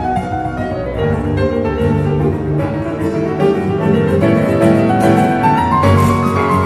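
Live trio of grand piano, flamenco guitar and double bass playing, with the piano out front over long held low bass notes.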